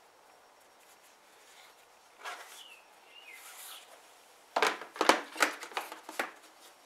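A plastic rocker panel cover handled and test-fitted against the truck: soft rubbing and scraping, then a quick series of sharp taps and knocks about two-thirds of the way in as the panel meets the body.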